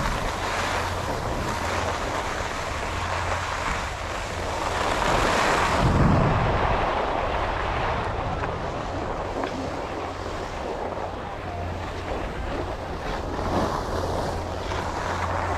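Wind buffeting the microphone: a steady rushing noise with a low rumble, swelling about five to six seconds in.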